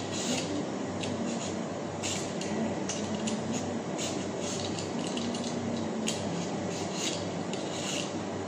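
Peeler blade scraping the skin off a ripe mango in repeated short strokes, about two a second, with a brief pause in the middle, over a steady low hum.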